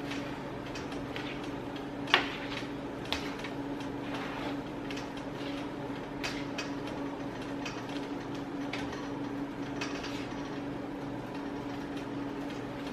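Spoon stirring rice and kidney beans in a large pan: light scrapes and clicks, with a sharper knock about two seconds in, over a steady hum.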